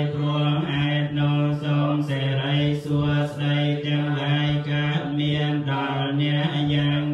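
Buddhist monks chanting together in unison on one steady, low pitch, the syllables following each other in an even rhythm.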